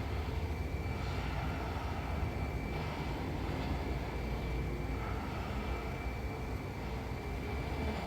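A woman snoring in her sleep: a low, steady rumble with soft breaths coming and going every two to three seconds.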